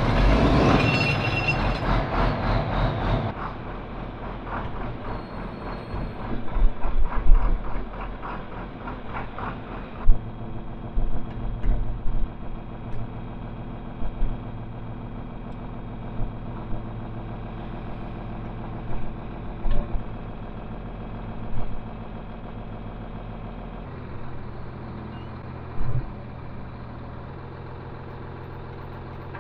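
A vehicle engine just started, running loud for the first few seconds and then settling to a steady idle, with short clunks every few seconds.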